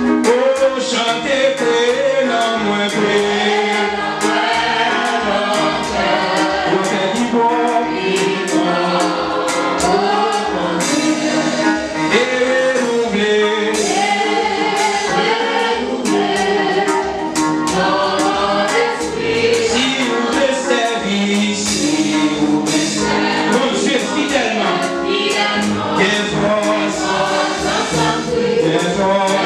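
Gospel worship singing: a man sings into a microphone while a group of voices sings along, over a steady beat.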